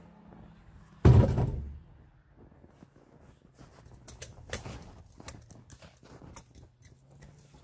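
A birch log dropped onto the stacked logs of a firewood sled: one loud, sudden wooden thunk about a second in, followed by scattered lighter knocks and handling noises.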